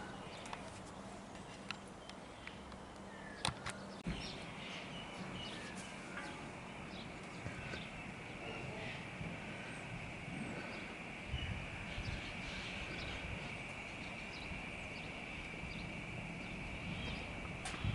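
Quiet outdoor ambience with a steady, high insect drone that comes in about four seconds in, plus a few faint scattered clicks.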